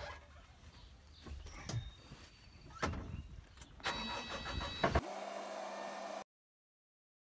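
Knocks and clunks as someone climbs into a tracked skid steer's cab, then about four seconds in the loader's engine cranks with a whine and starts, running steadily for about a second before the sound cuts off abruptly.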